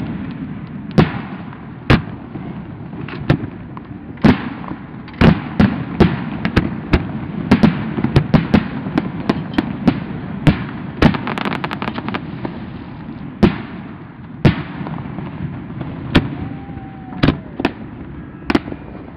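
Aerial fireworks shells bursting in a series of sharp bangs, irregularly spaced, with a rapid run of reports from about five to eleven seconds in and single bangs a second or more apart after that.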